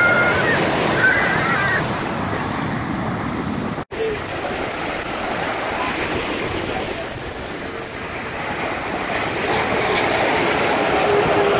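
Steady rush of surf breaking on the beach, with faint voices in the first two seconds and a brief dropout a little under four seconds in.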